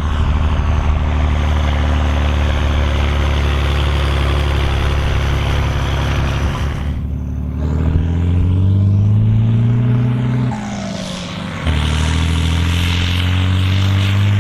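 Volvo BM 814 tractor's diesel engine working hard under load, pulling a six-furrow plough. It holds a steady deep note, dips briefly about halfway through, then climbs slowly in pitch. It drops off for a moment and comes back steady near the end.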